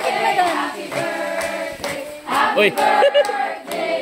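Several voices singing together in held, sustained notes.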